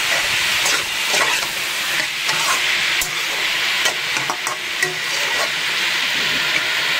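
Vegetable curry frying in oil and yogurt masala in a pan, a steady sizzle with no water in the pan. A spoon stirs it, scraping and tapping against the pan in short clicks several times.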